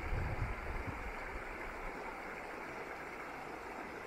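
Steady rush of flowing river water. A low, uneven rumble in the first second fades away.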